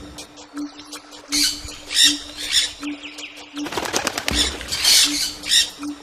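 Birds calling in short, harsh bursts, several in a row with brief gaps, over a low pulsing hum.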